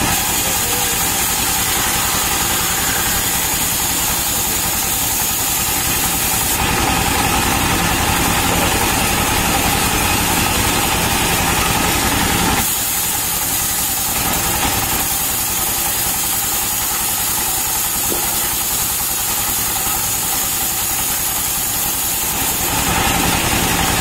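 Single-cylinder stationary diesel engine running steadily, driving a band sawmill as a palm-trunk slab is fed through the blade. A hiss from the blade cutting the palm wood rises and falls a couple of times over the engine's steady pulse.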